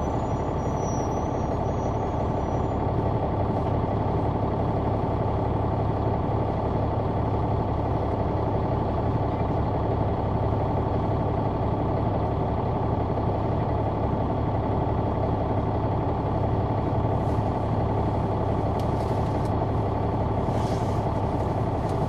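Caterpillar C-9 ACERT diesel engine of a 2004 Neoplan AN459 articulated bus, heard from the rear seats close to the engine, running steadily as a low drone with no change in pitch.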